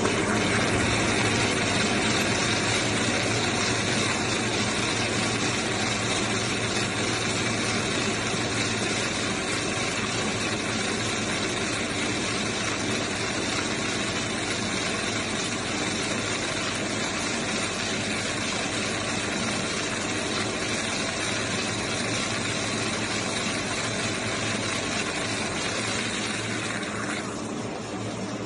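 Farm feed-processing machine running steadily, with several held tones over a constant mechanical noise; its higher part drops away about a second before the end.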